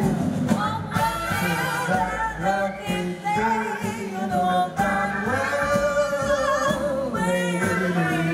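A man and a woman singing a live duet into microphones over a band, with long held notes that waver in vibrato.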